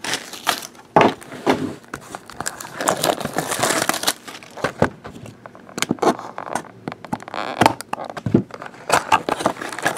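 Cardboard card box being opened and foil-wrapped trading-card packs handled: an irregular run of crinkling and rustling, with a few sharper crackles.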